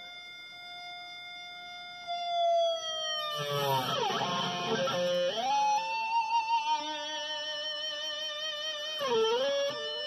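Dean Switchblade ML electric guitar sounded with an E-Bow: long, sustained notes with no pick attack, rich in overtones. The pitch slides slowly down, swoops down and back up in a rough, louder passage, then holds higher notes with steady vibrato before another quick dip near the end.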